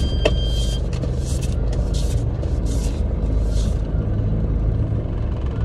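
Car engine running with a steady low rumble heard inside the cabin while the car manoeuvres to park. A brief high tone sounds near the start, and a few short hissing brushes come in the first four seconds.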